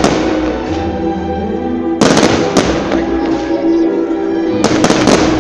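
Fireworks shells exploding in clusters of sharp bangs, one group about two seconds in and another near the end, over background music of sustained tones.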